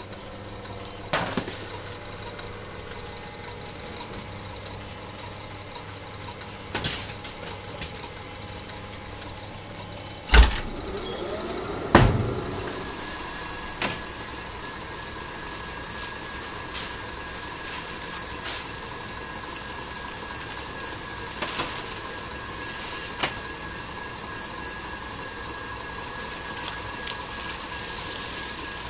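Metal baking sheets and trays clanking and knocking on a steel bench, the two loudest knocks about ten and twelve seconds in, the second ringing briefly, over the steady hum of bakery machinery.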